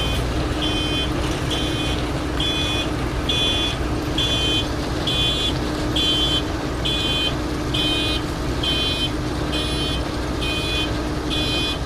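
A heavy machine's reversing alarm beeping evenly, about one and a half beeps a second, over the steady drone of a diesel engine.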